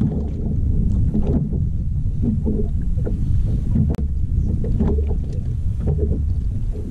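Wind rumbling on the microphone of a boat-mounted camera, with small waves lapping and slapping against the boat's hull.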